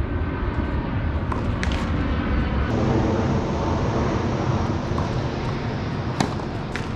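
Wind buffeting the microphone, a loud low rumble that sets in suddenly just before and holds steady, with a few sharp tennis-ball hits on racket strings, one near the start and two near the end.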